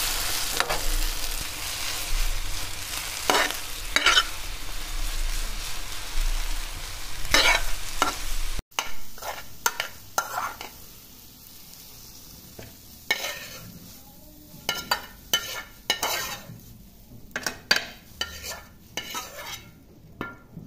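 Scrambled egg with tomato sizzling in a metal frying pan while a spatula scrapes and stirs it. After a sudden cut about a third of the way in, the sizzle is gone and there are quieter, separate scrapes and clinks of a spoon lifting the egg out of the pan onto a plate.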